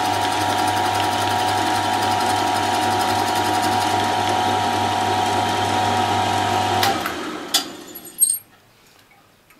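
Mill-drill motor and spindle running steadily with a whine and a low hum. About seven seconds in it is switched off and runs down, followed by two sharp clinks.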